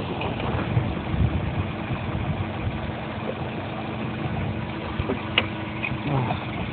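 Scion xD's four-cylinder engine idling with a steady low rumble, its new Spectrum cold-air intake fitted. There is a single sharp metallic clink about five seconds in.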